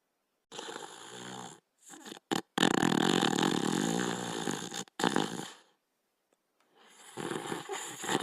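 Cartoon sound effect of a sleeping Border Collie character snoring: a series of separate snoring breaths with short silences between. The longest and loudest, with a low rattle, starts about two and a half seconds in and lasts a little over two seconds.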